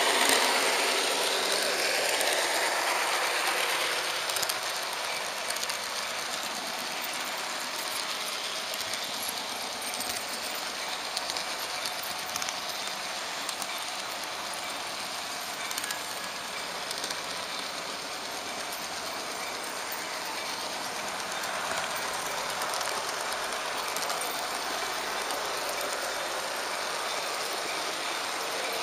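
Märklin HO-scale model train running along metal track: a steady rolling rattle of small wheels on rail, with occasional faint clicks. It is louder for the first few seconds, then stays even.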